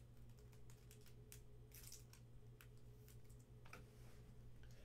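Faint, irregular clicks of typing on a computer keyboard, over a low steady electrical hum.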